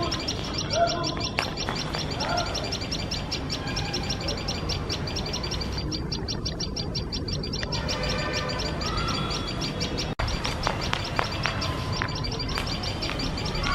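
Common tailorbirds giving shrill alarm calls, a rapid, evenly spaced series of high, sharp notes that keeps going, raised against a cat sitting close to their nest.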